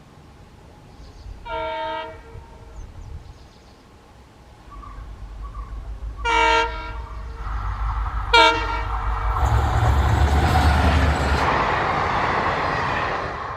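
Locomotive horn sounding three times, once about a second and a half in and twice more around six and eight seconds, as an express passenger train approaches and passes at speed. The train's rumble and wheel noise swell to become the loudest sound in the second half.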